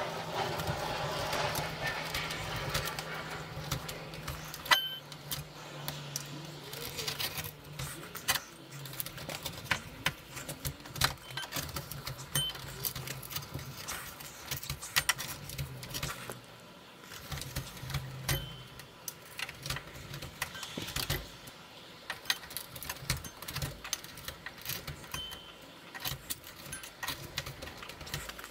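Metal putty knife scraping and clicking in the gap of a door's window frame as it digs out old caulking, in quick irregular scrapes and ticks.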